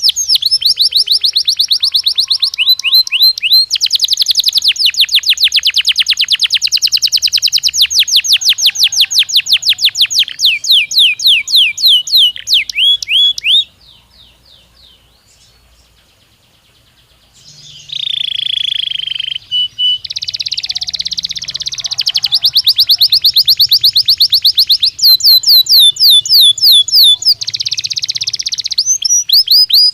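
Canary song: loud, fast trills of rapidly repeated high notes. The trills break off about halfway for a few seconds of near quiet, then resume with varied phrases and more trills.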